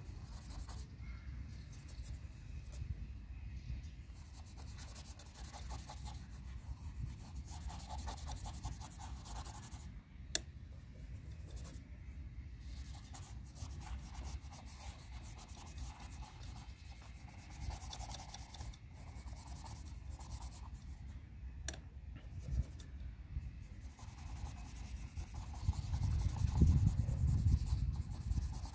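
Small paintbrush scrubbing oil paint onto a stretched canvas in many short, repeated strokes, a dry rubbing scratch. A low rumble sits underneath and grows louder near the end.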